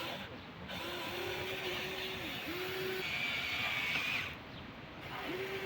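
Huina 1593 RC excavator's small electric motors and gearboxes whining in short runs as its functions are worked, each run gliding up in pitch as it starts and cutting off when it stops. A higher-pitched whine runs for about a second near the middle, and the lower whine returns near the end.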